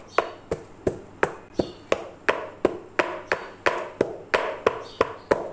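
An aluminium baking tray full of cake batter is rapped down on a stone countertop over and over, about three sharp knocks a second, to bring air bubbles out of the batter.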